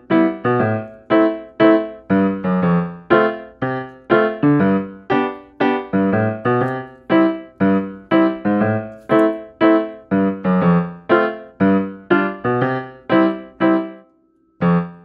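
Background piano music: short, quickly decaying chords in a steady bouncy rhythm, about two a second, breaking off for about a second near the end before starting again.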